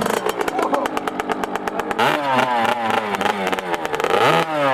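Pit bike engine running just after being bump-started, with a rapid even firing beat at first. From about two seconds in, the revs repeatedly rise and fall.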